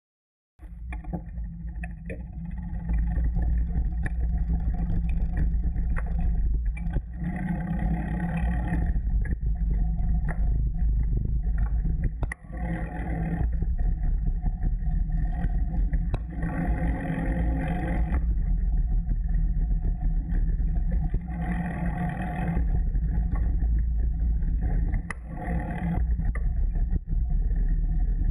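Bicycle ride recorded on a GoPro Hero 2: a loud, steady low rumble of wind on the camera's microphone and tyres rolling over paving stones, swelling in spells every few seconds. It starts suddenly just under a second in.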